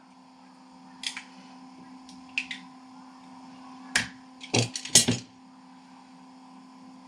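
Small plastic parts clicking and knocking as a pair of headphones is pried apart by hand, with a cluster of louder clicks about four to five seconds in. A steady electrical hum runs underneath.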